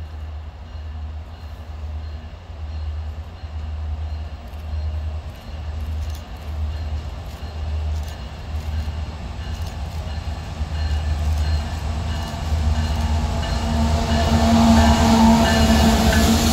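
CSX freight train's diesel locomotives approaching and growing steadily louder, passing close about three-quarters of the way in, with a low pulsing rumble throughout.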